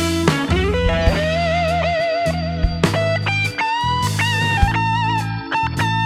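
Background music: a guitar melody with wavering, bending notes over a steady bass line and drum hits.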